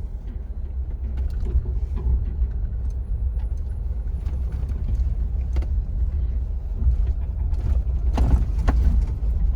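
Jeep creeping down a rough dirt trail: a steady low rumble from the vehicle, with scattered clicks and creaks and a louder stretch of knocks about eight seconds in.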